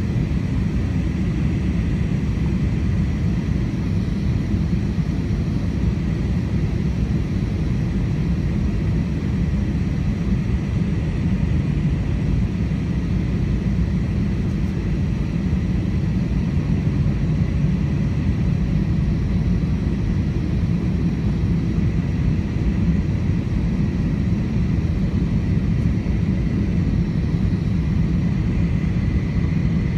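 Steady cabin noise inside an Airbus A320 descending on approach: the low rumble of engines and airflow, with a faint steady high tone above it.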